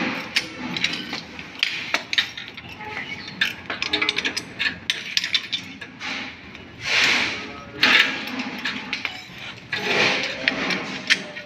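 Pliers and small metal parts clicking and clinking against the throttle linkage of a mini tiller's small petrol engine as it is being fitted, with a few short rustling bursts.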